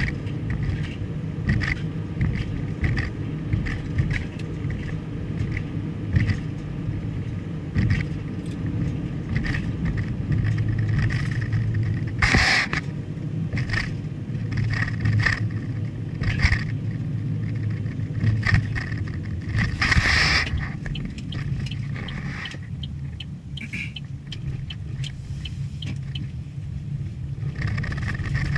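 Road and engine noise of a moving car heard from inside, a steady low rumble with scattered light clicks. Two brief loud hissing whooshes come about twelve and twenty seconds in.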